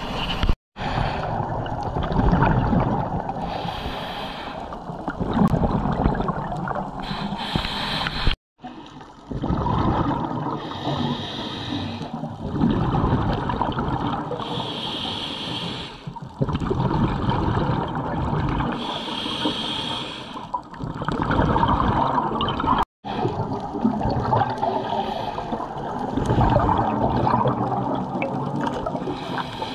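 Scuba regulator breathing underwater: a hissing inhale alternating with a rush of bubbling exhaust, repeating about every four seconds.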